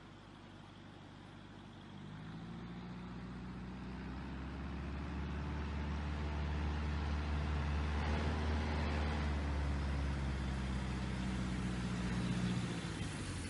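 A vehicle's engine running at a low, steady pitch, growing steadily louder from about two seconds in.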